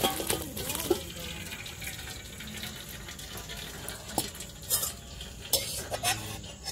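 Water draining and dripping from boiled bottle gourd shreds in a plastic colander, with a few clicks and knocks from handling the pot and colander.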